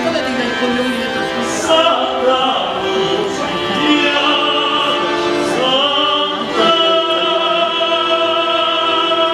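Operatic singing: a single voice sustaining long notes with vibrato, moving from one held note to the next.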